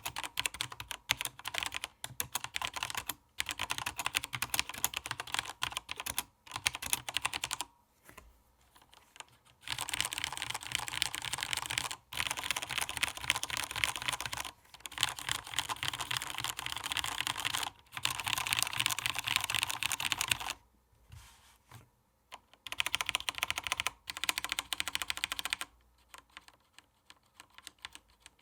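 Typing on a SteelSeries 6gv2 mechanical keyboard with linear Cherry MX Black switches and ABS keycaps: fast runs of key clacks broken by short pauses, with a few lighter, sparser keystrokes near the end.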